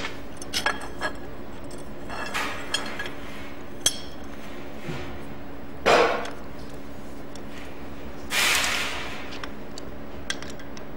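Locking clamp and small steel plates being handled: scattered metal clinks and clicks, a louder clack about six seconds in and a short noisy scrape about eight and a half seconds in, over a steady low hum.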